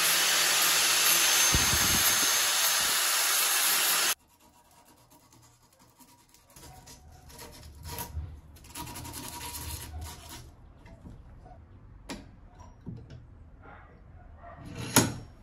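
Angle grinder grinding a stainless steel bolt held in a bench vise, running steadily for about four seconds and cutting off suddenly. Then quieter scraping strokes of a hand file on the bolt, and a single sharp metallic clank near the end as the vise is opened.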